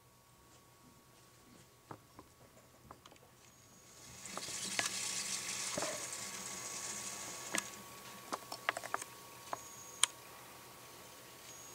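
Actively fermenting beer fizzing under its thick foam cap: a steady hiss of bursting bubbles that starts about four seconds in and fades after a few seconds. After that come scattered sharp pops and clicks as fermentation gas bubbles through a three-piece airlock, one loud pop near the end.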